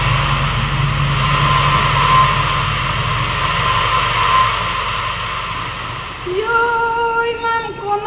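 Dark ambient music drone, a steady low hum under a hissing wash, that fades out; about six seconds in, a woman starts singing long, wavering held notes.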